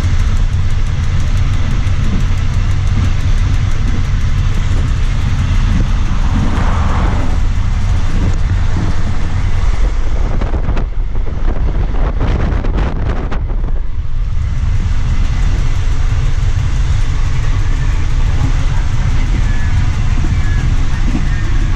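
Thai diesel train running at speed: a loud, steady low rumble of wheels on rail. About ten seconds in, the hiss dulls for a few seconds while a quick run of clicks is heard, then the steady running returns.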